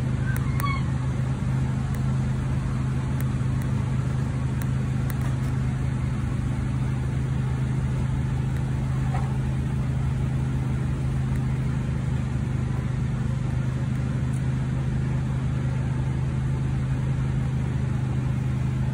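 Vehicle engine idling steadily, a low even hum with no change in speed.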